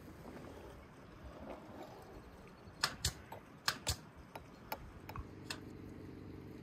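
Metal spoons clinking against glass and china dishes: a quick cluster of sharp clinks about three to four seconds in, then a few lighter taps. A faint steady low hum sets in near the end.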